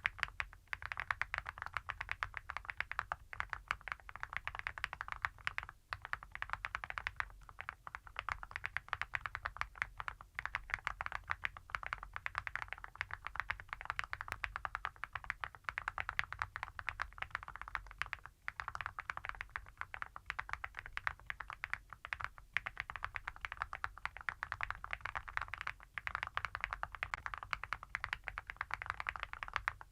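Continuous typing on a mechanical keyboard with Epomaker Creamy Jade switches and full metal Awekeys keycaps: a steady stream of heavy, clacky keystrokes with a few brief pauses.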